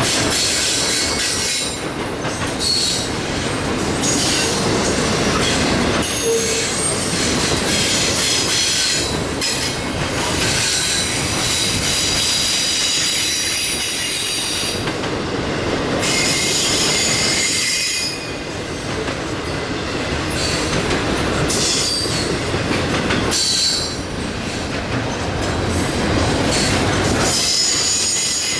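Union Pacific train's railcars rolling past: a steady rumble and clatter of steel wheels on rail, with high-pitched wheel squeal coming and going.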